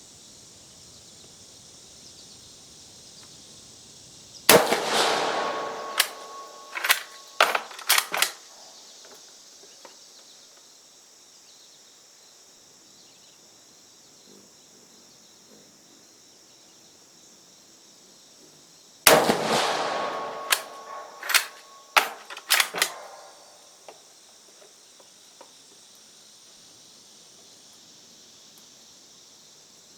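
Two rifle shots from a 6.5mm Carcano M91 TS carbine about fifteen seconds apart, each echoing away. Each shot is followed by a quick series of clicks and clacks as the bolt is worked. A steady high insect buzz runs underneath.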